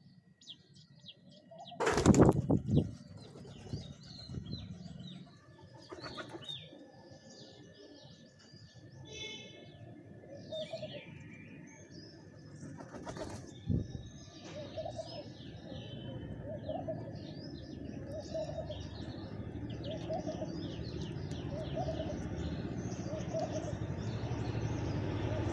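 Pigeon wings flapping loudly in a short flurry about two seconds in, with small birds chirping throughout. In the second half a low coo repeats about once a second, and there is a single sharp knock partway through.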